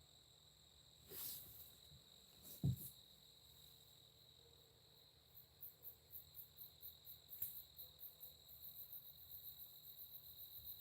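Faint night insects calling in the woods: a steady high trill, joined from about halfway by very high pulsing chirps, a few a second, that grow stronger. A soft rustle about a second in and a short thump near 3 s.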